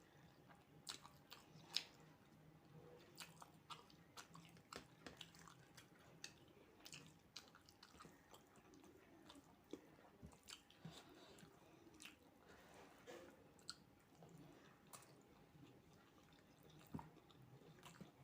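Quiet, close-miked chewing and mouth sounds of someone eating fried rice and chicken curry: soft, irregular smacks and clicks, with one sharper click about two seconds in.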